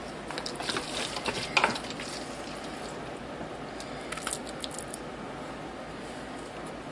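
Wet ground-meat mixture with beans, salsa and sour cream being scooped and dropped onto tortillas in a baking dish: a few soft squishes and utensil scrapes in the first two seconds and again about four seconds in.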